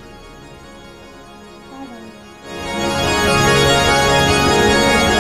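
Fairly quiet room sound, then about halfway through loud background music with sustained chords comes in.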